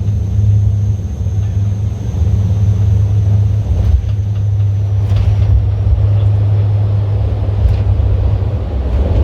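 Car on the move heard from inside the cabin: a steady low road-and-engine rumble, with a few faint ticks.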